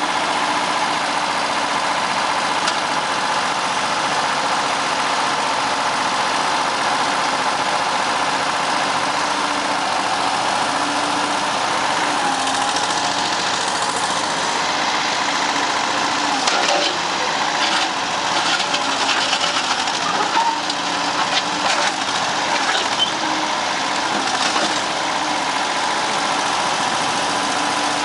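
Engine of a Case tracked trencher-backhoe running steadily. From about halfway through there is a run of irregular clanks and knocks over the engine, and its pitch shifts a little.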